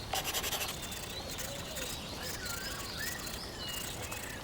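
Birds chirping in short, curving calls over a steady background hiss, with a marker scratching across paper in the first moment.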